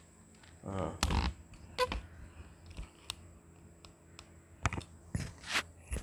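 A few brief, soft rustles and knocks scattered through a quiet room, with a short low murmur about a second in.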